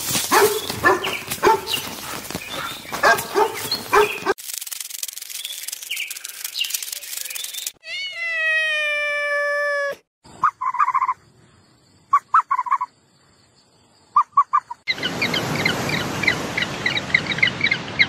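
Several different animal calls cut one after another: a dog's sounds first, then a long call that falls in pitch and holds steady, a few short clipped calls, and a stretch of rapid repeated chirping near the end.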